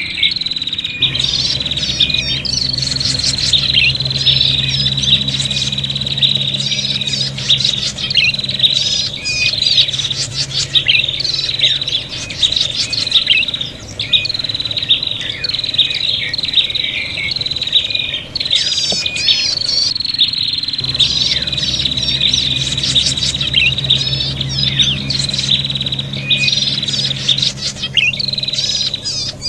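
Several prenjak (prinias) calling agitatedly at once: a continuous high, thin trill with dense, rapid, sharp chirps over it, the noisy fighting chatter used as a trapping lure. The recording is looped, restarting about a second in and again about two-thirds of the way through, over a steady low hum.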